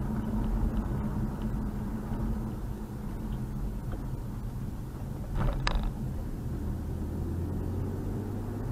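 A car's engine and tyre noise heard from inside the cabin while driving, a steady low drone, with a brief sharp click or rattle about five and a half seconds in.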